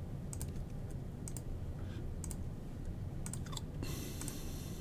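A computer mouse button clicking again and again, about once a second, each click a quick double tick, over a low steady hum. A soft hiss sets in near the end.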